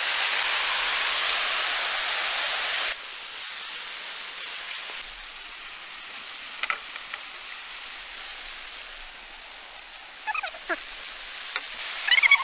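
Steady rain, heavy for the first three seconds and then dropping suddenly to a lighter patter. A few short animal calls come near the end.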